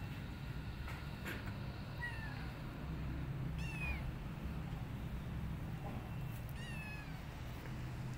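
A kitten meowing three times, short high cries that fall in pitch, spread a couple of seconds apart, over a steady low hum.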